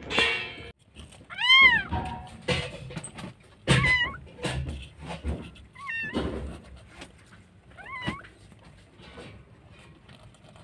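Newborn kitten mewing: four short, high-pitched cries about two seconds apart, with soft rustling and knocks in between.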